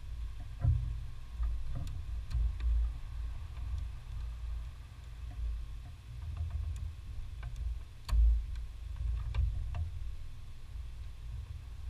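Scattered light metallic clicks of a wrench working the brake line fittings on a Mercedes W202's brake master cylinder, with a sharper knock about eight seconds in, over a low rumble.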